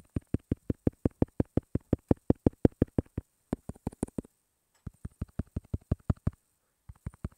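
A rapid run of soft low thuds, about five or six a second, in three bursts that stop and start again.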